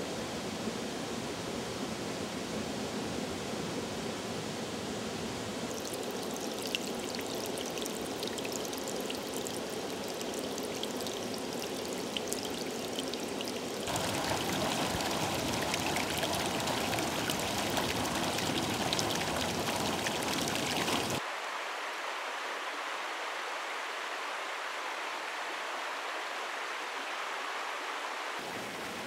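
Water running over rocks in a shallow stream and small cascades, a steady rush that changes abruptly at several cuts. It is louder and fuller for several seconds from about halfway through, then thinner.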